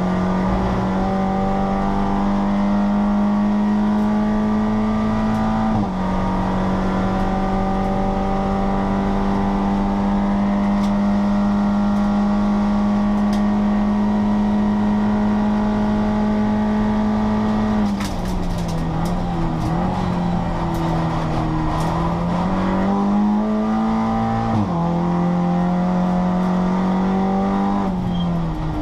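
Seat Leon Cup race car's turbocharged four-cylinder engine at high revs, heard from inside the stripped cabin: it holds a steady, loud pitch down a straight with a sudden small drop about six seconds in, an upshift. About eighteen seconds in the pitch falls and wavers as the car slows through downshifts, then climbs under acceleration and drops sharply again at the next upshift near twenty-five seconds.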